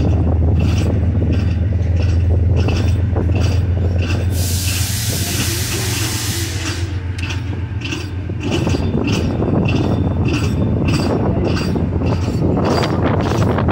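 Passenger train running along the track, heard from the side of a moving coach: a steady low rumble with regular clicks about twice a second, typical of wheels crossing rail joints. About four seconds in, a burst of hiss lasts for about two seconds.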